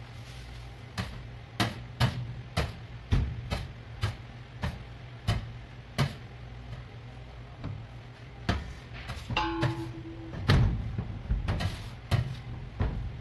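Butter-rich brioche dough pressed and slapped down by hand on a stainless steel counter: a string of dull thuds, one or two a second, over a steady low hum, with a short ringing tone just past the middle. Near the end a plastic bench scraper scrapes across the steel.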